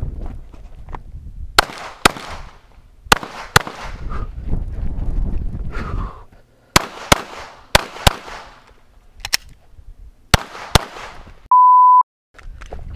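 Glock pistol firing an IPSC course of fire: about a dozen shots, mostly in quick pairs, with pauses as the shooter moves between positions. A short steady beep sounds about a second before the end.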